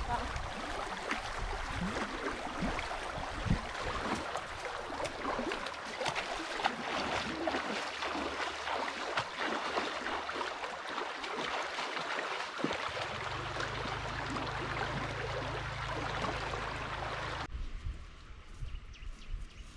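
Steady rushing of a fast-flowing, swollen river, full of small crackling splashes. A low steady hum joins in for a few seconds, and the rush drops away suddenly near the end.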